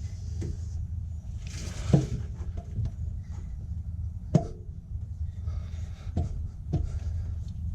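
Scattered knocks and clunks of a cylinder head being worked down onto an engine block while it rocks and will not seat, the loudest about two seconds in and again near the middle, over a steady low hum.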